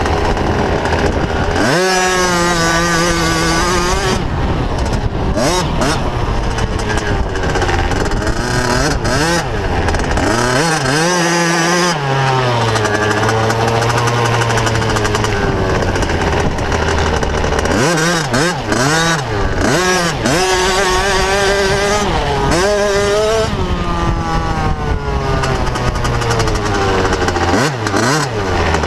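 Motocross bike engine heard close up from the bike itself, revving up and down as it accelerates, shifts and backs off around the track. The pitch climbs and drops again and again, with quick bursts of throttle about a third of the way in, around two-thirds, and near the end.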